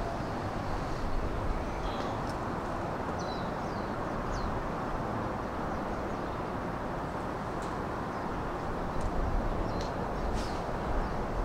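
Steady outdoor background noise with a few short bird chirps over it: a small cluster of sliding chirps about two to four seconds in, and a few more sharp chirps near the end.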